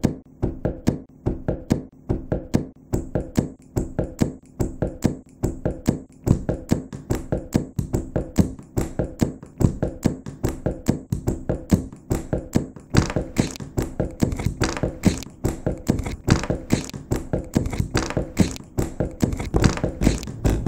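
Layered percussion loop of hands tapping and knocking on a wooden table and on school items, a steady beat of about four hits a second. More layers join about three seconds in and again around thirteen seconds, filling out the rhythm.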